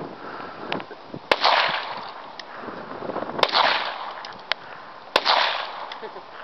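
Three shots from a Hopkins & Allen Ranger No. 2 .32 rimfire revolver, about two seconds apart, each followed by a rolling echo, with lighter clicks between them.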